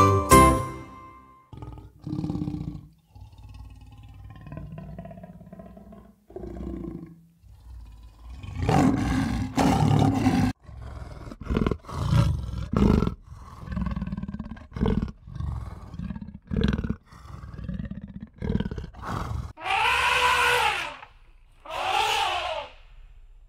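A jingle ends in the first second or so. Then comes a string of short growling calls from a cat, and near the end two elephant trumpets, each about a second long, rising then falling in pitch.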